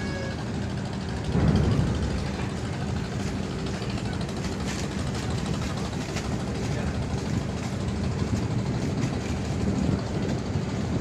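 Ferry engines running with a steady low drone, swelling briefly louder about one and a half seconds in.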